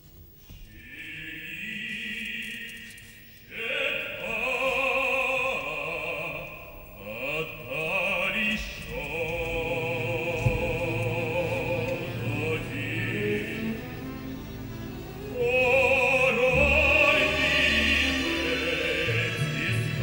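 A male opera singer singing with strong vibrato over an orchestra; the voice comes in a few seconds in and grows louder near the end.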